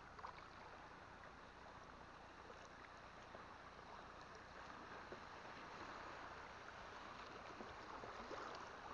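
Faint steady rush of flowing river water, with a few light ticks.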